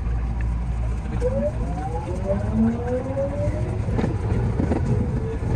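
207 series electric commuter train accelerating away from a station, heard from the driver's cab: a low rumble with several traction-motor whines rising together in pitch as it gathers speed, then wheel clacks over the track from about four seconds in.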